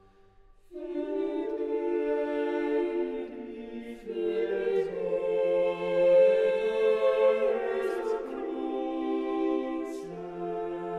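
Slow music of long held chords that shift every few seconds, starting about a second in after a brief hush.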